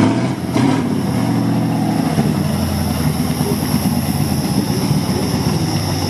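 Off-road 4x4 vehicle's engine running at a steady pitch, with two brief rushes of noise in the first second.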